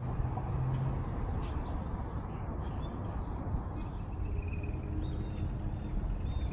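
Outdoor ambience: a steady low rumble of open-air noise, with faint bird chirps and calls over it.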